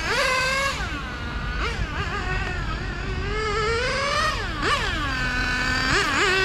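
OS Max R21 nitro engine of a Serpent 990 Viper 1/8-scale 4WD on-road RC car, just run in and running rich. It revs up and down over and over as the car accelerates and brakes around the track, with a sharp drop in pitch about four and a half seconds in.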